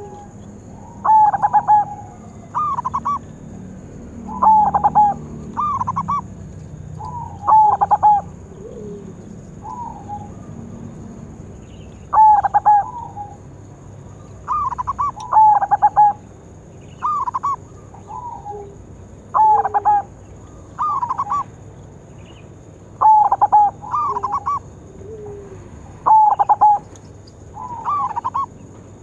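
Zebra dove (perkutut) cooing: short warbling coo phrases that wobble up and down in pitch, repeated every one to three seconds, with fainter, lower coos in between.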